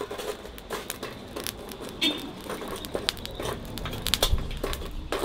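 Metal tongs shifting lumps of burning charcoal on a metal sheet laid over a pot, making irregular clinks and knocks with light crackling from the coals. The coals are heaped on top so the pudding bakes from above as well as below.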